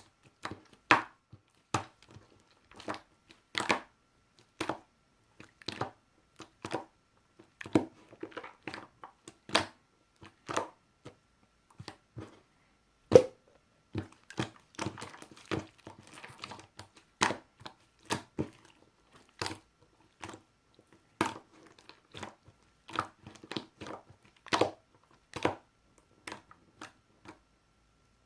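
Marbled slime worked by hand, giving sharp crackling pops at an uneven pace, about one or two a second.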